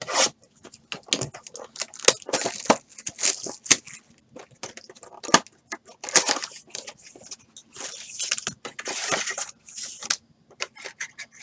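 A sealed box of 2015-16 Panini Preferred basketball cards being opened by hand: wrapping torn and crinkled, cardboard flaps scraped and the packs inside handled, in an irregular run of sharp crackles and rustles.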